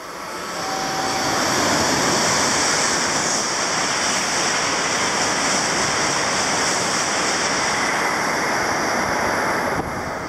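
Tohoku Shinkansen bullet train passing through the station at full speed without stopping. A loud, steady rush of air and running noise builds over the first second or two, holds, and drops off sharply near the end.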